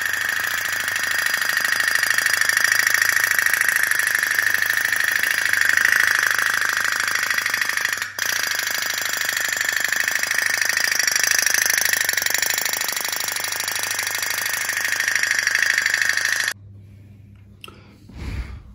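Candle-heated tin pop-pop boat's steam engine running with a steady, fast putt-putt rattle. It breaks off for a moment about halfway through and stops suddenly near the end.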